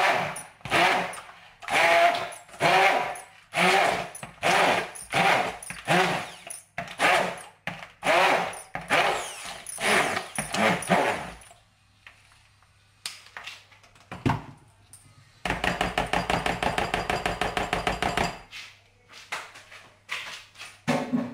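Hand-held immersion (stick) blender puréeing cooked vegetables and meat in a plastic bowl, switched on and off in short pulses a little under two a second for about eleven seconds. After a pause it runs steadily for about three seconds, and a couple of knocks come near the end.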